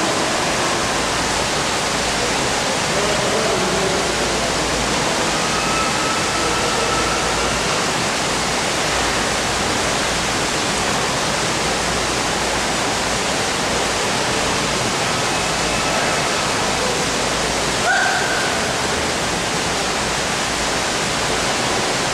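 A steady, even rushing noise that stays at one level throughout, with a brief high tone about three-quarters of the way through.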